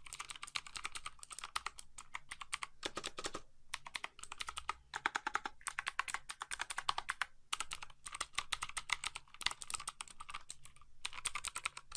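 Typing on a Rampage Hydra R6 mechanical keyboard with Blue switches: rapid clicky keystrokes in runs, broken by brief pauses.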